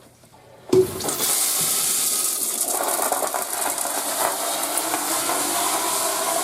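Commercial flush valve flushing a Crane toilet or urinal: a sharp knock as the valve opens, about a second in, then a steady rushing hiss of water under line pressure.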